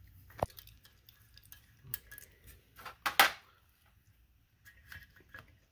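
A 10 mm socket and extension clinking against metal while the speedometer sensor bolt is undone on a Mazda RX-7 transmission: a few sharp clinks, the loudest about three seconds in.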